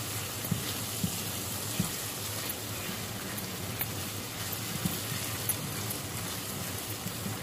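Ground spice paste with lemongrass and leaves sizzling steadily as it fries in oil in a pan, being fried until fragrant. A silicone spatula stirring it gives a few soft scrapes.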